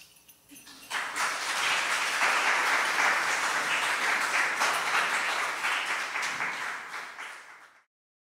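Audience applauding, starting about a second in and holding steady, then fading out and cutting off near the end.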